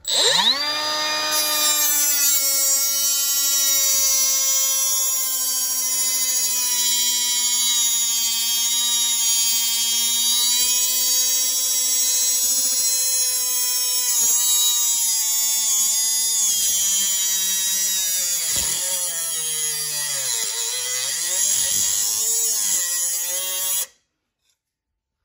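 Milwaukee cordless cutoff tool spinning up with a rising whine, then cutting steel angle iron with its abrasive cut-off wheel: a steady high whine over a grinding hiss. In the last several seconds the motor's pitch sags again and again as really heavy pressure loads the wheel, and the sound then cuts off suddenly.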